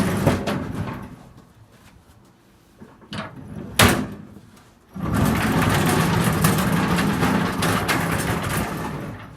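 Heavy metal welding set being moved over the ground: rough rumbling and scraping, one sharp bang about four seconds in, then a longer stretch of rumbling.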